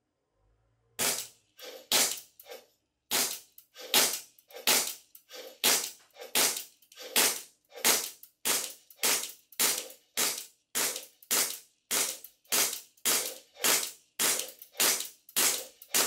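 Army Armament R604 Hi-Capa-style gas blowback airsoft pistol firing a steady string of shots on SRC gas, starting about a second in, at about two shots a second. Each shot is a sharp report followed by a smaller second click.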